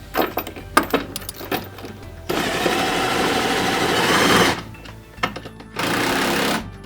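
Cordless drill fitted with a socket spinning a nut down onto a bolt to tighten a mounting bracket: a few light clicks of tool and hardware, then one run of about two seconds and a second short run near the end.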